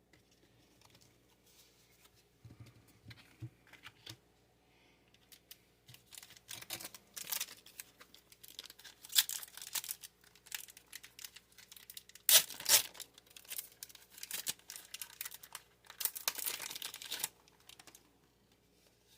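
Pokémon booster pack's foil wrapper being torn open and crinkled, in repeated bursts of ripping and rustling after a few seconds of soft handling sounds.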